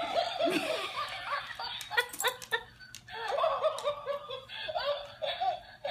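Motorized laughing plush toy letting out long runs of repeated chuckles through its small speaker while it rolls on the floor, with short clicks throughout.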